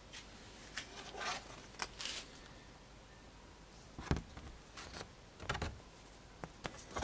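Faint handling sounds: a sheet of paper rustling as it is picked up and moved, with a few soft knocks and sharp clicks.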